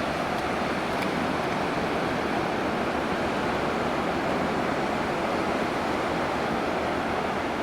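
Ocean surf: a steady wash of breaking waves and rushing water, with no separate crashes standing out.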